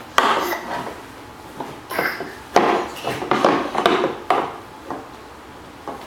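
Irregular knocks and clatter, about six sudden hits in the first four and a half seconds, as a toddler handles and bumps hard objects while playing.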